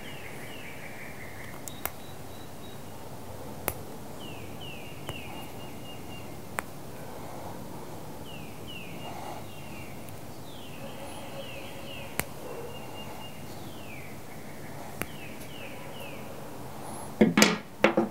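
Birds singing outside in groups of short, quick falling chirps over a steady background hiss, with a few faint single clicks from hand-stripping the plastic of a cable connector. About a second before the end comes a louder brief clatter of handling at the table.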